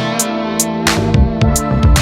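Background music: an instrumental track with guitar over a steady beat.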